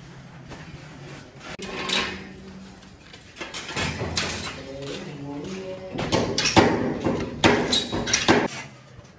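Clanking knocks and scraping of steel scaffolding frames and pipes being handled and fitted together, with a run of sharp metal knocks, the loudest, in the second half.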